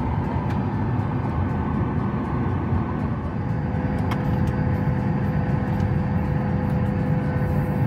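Steady rush and hum of air in the cabin of a Boeing 737-800 parked at the gate, with a faint steady tone joining about three seconds in and a few light clicks.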